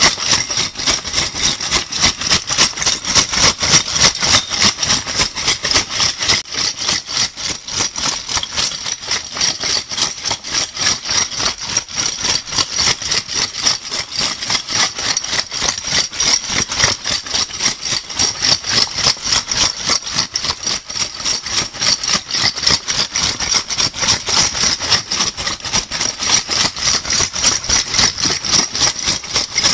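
Metal crown bottle caps shaken in a bag, rattling and clinking against each other in a fast, even rhythm of about four shakes a second.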